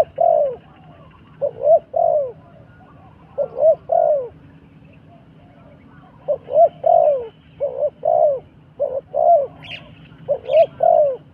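A dove cooing in repeated phrases of two or three low, bending coo notes, a new phrase every second or two. A few brief high chirps from another bird come in near the end.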